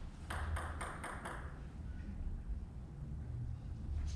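Celluloid/plastic table tennis ball bounced several times in quick succession, about four sharp ticks a second, then stopping.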